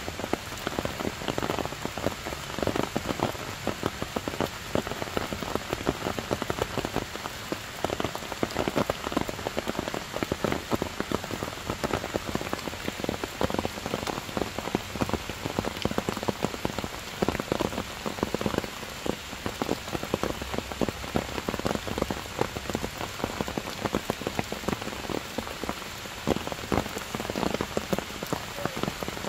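Heavy rain falling steadily on leaves, grass and stone, a dense spatter of many individual drop hits.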